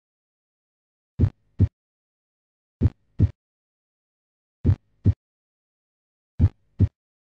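Heartbeat sound effect: paired low thumps (lub-dub) coming four times, slowly, about one pair every two seconds, with silence between.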